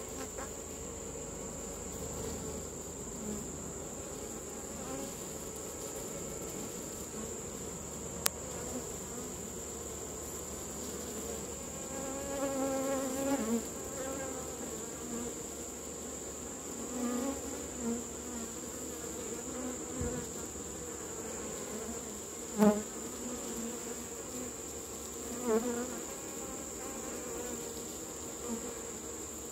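Honeybees at an open nucleus hive buzzing steadily. Now and then a bee flies close and gives a louder buzz that rises and falls, the loudest about three quarters of the way through.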